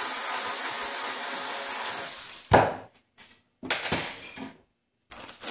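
Cordless drill-driver running steadily for about two and a half seconds, backing out the screws of a grand piano's lid catch, then a single sharp click. A few shorter, quieter noises follow.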